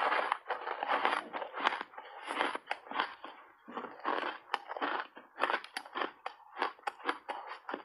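Refrozen block ice coated in matcha and milk powder being bitten and chewed in big mouthfuls, with dense, irregular crunching and many sharp cracks.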